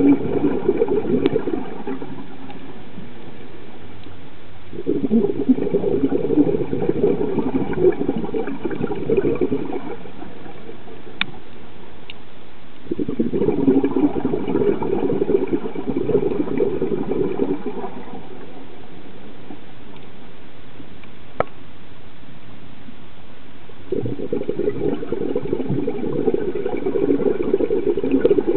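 A scuba diver's regulator exhaling underwater: bubbles gurgle out in bursts of about five seconds, four times, with steadier, quieter stretches between breaths. A couple of faint sharp clicks are also heard.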